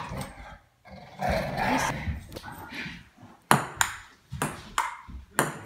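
A table-tennis rally in the second half: a run of sharp clicks, about two a second, as the ball strikes the table and paddles. Before it, about a second in, a short stretch of muffled noise.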